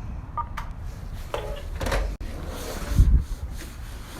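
Clicks and knocks of a door being handled, with a dull thud about three seconds in.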